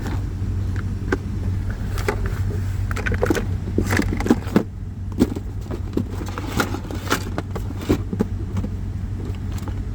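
Scattered clicks, knocks and light rattles of hands handling plastic interior trim and a wire inside a car cabin, over a steady low hum.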